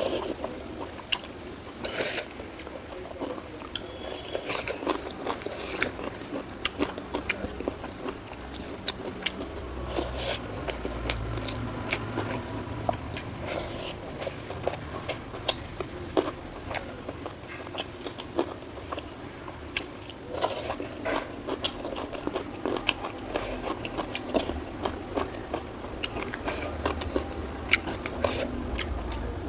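A person eating close to the microphone: biting and chewing, with many irregular, quick mouth clicks and a louder burst about two seconds in.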